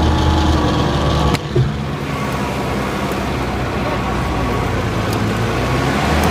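Off-road 4x4 engine running steadily under load in tall grass; an abrupt cut a little over a second in switches to a second vehicle's engine heard close up, running with a steady note.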